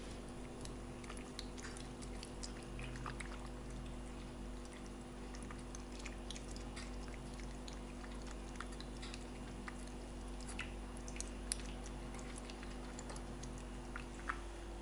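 A cat eating wet food from a stainless steel bowl: soft, irregular wet chewing and lapping clicks, with a couple of sharper clicks near the end, over a steady low hum.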